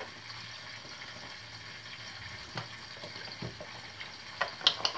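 Steady sizzle of hot peppers frying in oil in a covered deep pot, with a few sharp clicks near the end as a milk carton is handled and poured over flour in a glass bowl.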